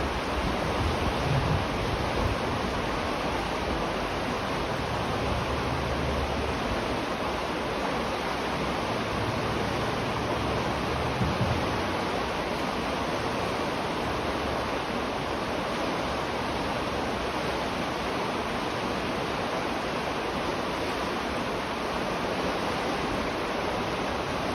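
River water rushing steadily beneath a bridge, with a few soft low rumbles now and then.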